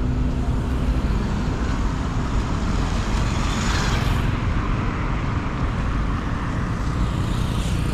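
Road traffic noise: a steady low vehicle rumble, swelling louder and hissier for about a second around the middle.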